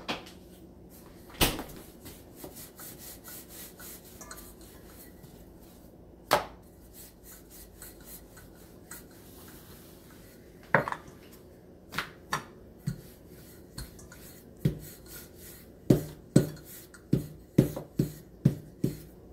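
Wooden rolling pin rolling out paratha dough on a countertop, with sharp wooden knocks as the pin strikes the counter. The knocks are scattered at first, then come in a quick run of about two a second near the end.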